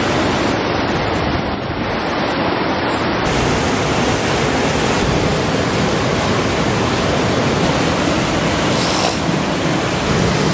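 River rapids: white water rushing over and around rocks, a steady, loud rush of water.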